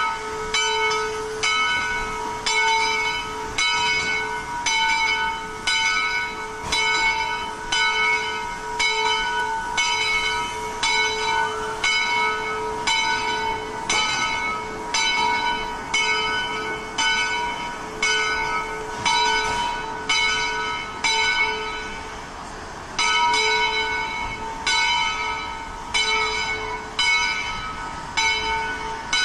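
Bell of a Shay geared steam locomotive ringing steadily, about one strike a second, with a short break about three-quarters of the way through.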